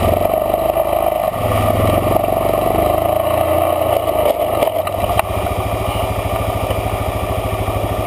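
Off-road vehicle's engine running at low speed as it crawls up a rocky trail. It pulls harder for a couple of seconds about two seconds in, then settles to steady running, with a sharp knock about five seconds in.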